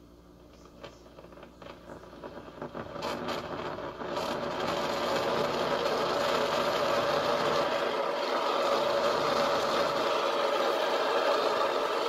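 Mainstays single-serve coffee maker heating plain water on a flush cycle: scattered pops and crackles build up, then about four seconds in it breaks into a steady, loud boiling and gurgling hiss.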